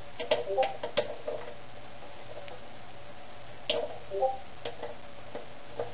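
Quarter-inch-drive ratchet clicking in two short runs, about a second in and again around four seconds, each click with a brief metallic ring, as the magneto coil's mounting screws are tightened. A faint low steady hum runs underneath.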